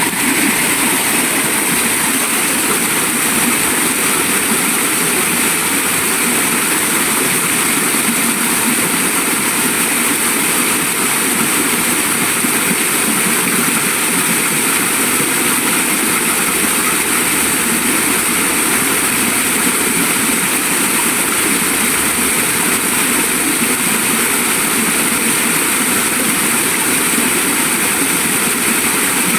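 Waterfall: water pouring steadily, a continuous even rush with no breaks.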